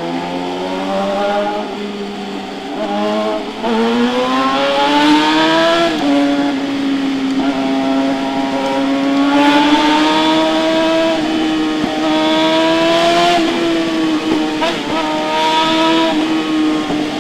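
Suzuki GSX-R600 K8's inline-four engine through an SC Project full exhaust system, running at high revs: the pitch climbs over a couple of seconds early on, then holds high with small swells and two short dips.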